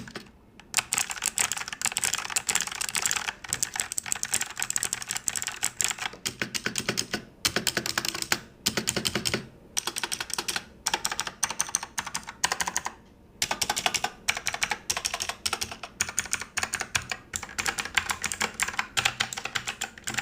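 Fast typing on a Fantech MaxPro MK851 full-size mechanical keyboard: rapid key clicks in long runs, broken by several short pauses.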